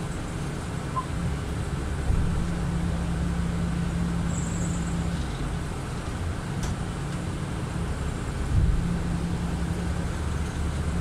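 Kanto Railway KiHa 310-series diesel railcar's engine running at a standstill, heard from inside the cab as a steady low hum. It steps up louder about two seconds in, and there is a short low knock near the end.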